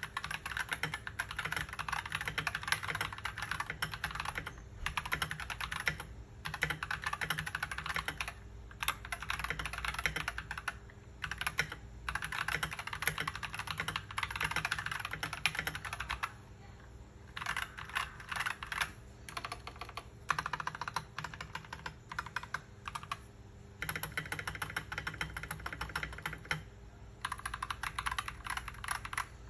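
Typing on an Akko 3098 mechanical keyboard with Akko CS Ocean Blue tactile switches and ASA-profile PBT keycaps: dense runs of key clacks broken by brief pauses.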